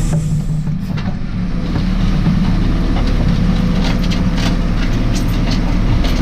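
JCB 4CX backhoe loader's diesel engine running steadily under load, with irregular clanks and rattles from the working machine.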